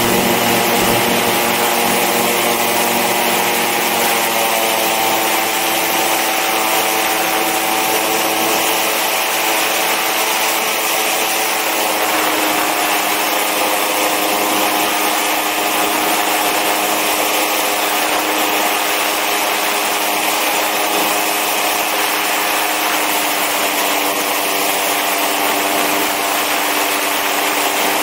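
Powered parachute's engine and pusher propeller running steadily at high power through the takeoff roll and climb, a buzzing engine note over a strong rush of propeller wind.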